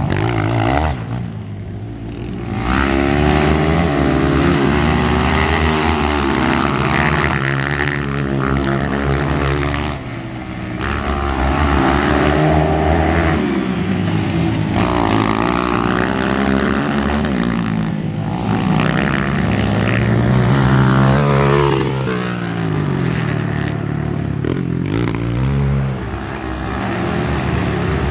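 Trail motorcycle engine revved hard, its pitch repeatedly climbing and dropping as the bike is ridden, with brief throttle-offs about a second in, around ten seconds, and twice more near the end.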